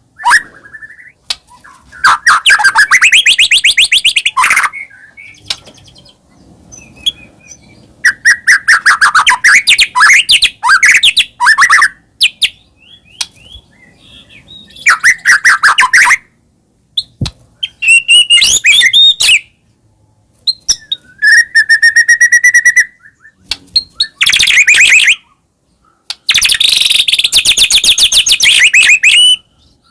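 White-rumped shama singing a vigorous full song: loud bursts of rapid trills and whistled phrases, each lasting a second to a few seconds, with short pauses between. This is the energetic 'gacor' song played to spur other shamas into singing.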